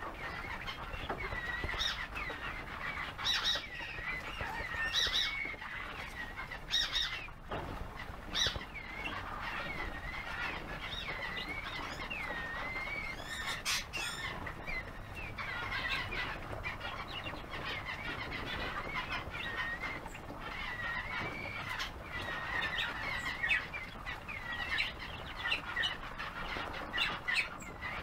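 Roul-roul (crested wood partridge) chicks peeping: a continuous stream of short, rising-and-falling high chirps, with a few sharp taps and rustles among them.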